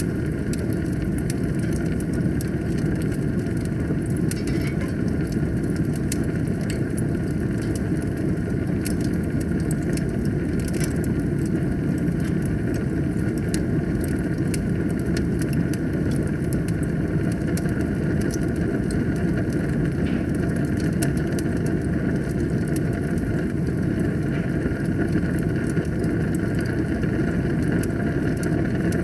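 Fire burning in a fireplace: a steady low roar of flames with frequent small, sharp crackles and pops throughout.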